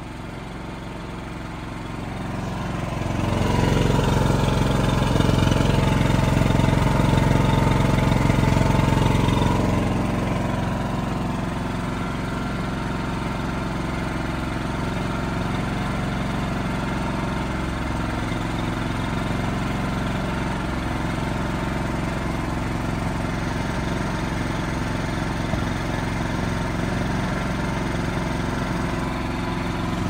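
Emergency generator's engine running with no load on the fuel left in the line after the fuel is shut off, just before it stalls out. It gets louder about three seconds in for some seven seconds, then runs on steadily.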